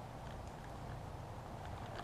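Faint crinkling of a clear plastic parts bag being handled, over a steady low background hum.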